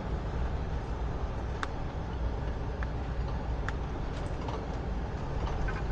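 Motorhome driving slowly on a dirt road, heard from inside the cab: a steady low rumble of engine and tyres, with a few sharp clicks scattered through it.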